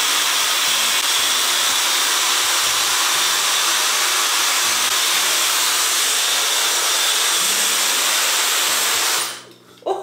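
Dyson Supersonic hair dryer running steadily on hair: a smooth rush of air with a faint high whine. It is switched off about nine seconds in.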